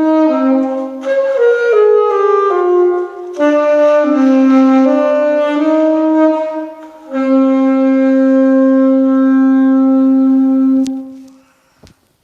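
Saxophone playing a slow melody on its own, one held note after another, ending on a long sustained note that fades out about eleven seconds in. Two brief clicks follow near the end.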